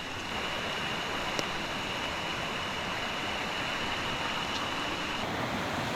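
Waterfall running full with storm runoff after overnight thunderstorms: a steady rush of falling water.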